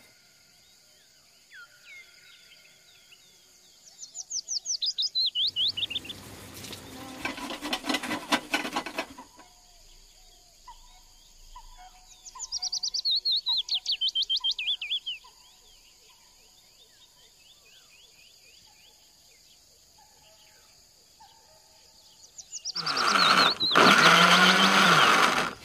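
Birds singing in fast descending trills, twice, with a run of short repeated chirps between them over a steady high-pitched hiss. Near the end an electric blender runs loudly for about three seconds.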